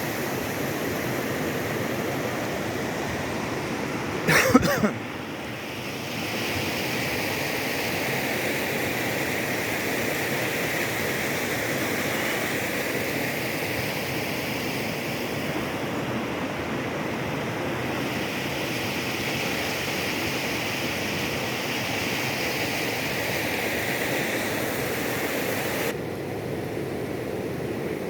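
Waterfall and river water rushing steadily, with a brief knock about four seconds in.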